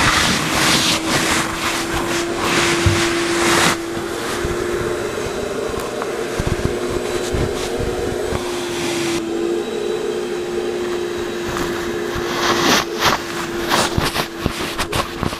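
Vacuum cleaner running steadily, its crevice nozzle dragged along a fabric couch's cushions and seams. The suction hiss changes as the nozzle presses into and lifts from the upholstery, with small scraping sounds.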